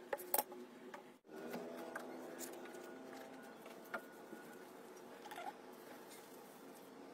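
A couple of sharp metallic clicks as the aluminium fan end cover is handled, then a toothbrush scrubbing a small steel ball bearing over a metal bowl, a soft scratchy patter.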